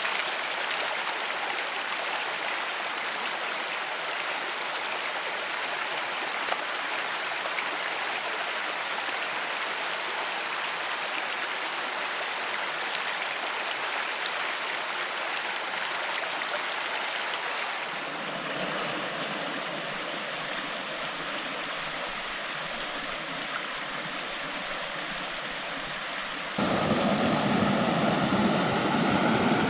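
Steady rush of flowing creek water, a continuous splashing hiss. It changes abruptly twice: about two-thirds of the way in to a deeper, duller rush, and near the end to a louder, fuller roar of water.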